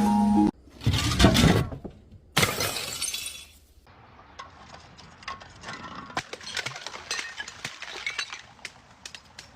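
Glass bottles shattering: two loud crashes about two seconds apart, then a scatter of faint tinkles and clinks as the broken glass settles.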